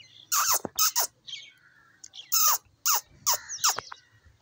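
Birds chirping close by: a string of short, sharp chirps, each falling quickly in pitch, in two bursts with a short pause between.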